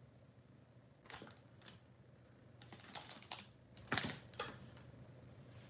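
Hands handling a clear plastic bag and setting small craft supplies (a liquid glue pen and a small round plastic container) down on a cutting mat: a handful of short clicks and crinkles, the loudest about four seconds in.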